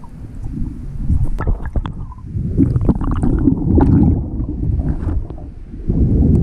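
Water movement heard from under the surface: a muffled, uneven low rumble and gurgling that swells about three to four seconds in, with scattered sharp clicks and crackles throughout.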